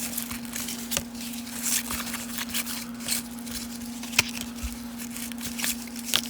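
Baseball cards being flipped through by hand: short slides, snaps and rustles of card stock, with one sharper click a little after four seconds in, over a steady low hum.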